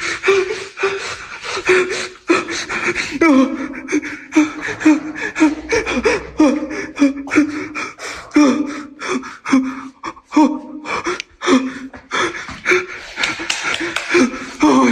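A person gasping and panting rapidly, with a short pitched vocal sound on many of the breaths.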